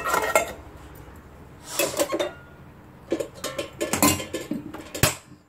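Steel kitchen containers and a steel lid clinking and clattering as they are handled, with several separate sharp metallic knocks, the sharpest near the end.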